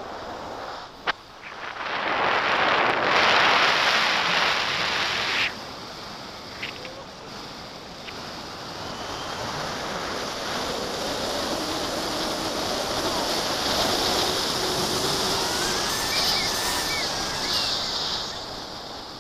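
Wind rushing over the camera microphone in flight on a tandem paraglider: a steady noisy rush that swells loud for a few seconds near the start. There is a sharp click about a second in.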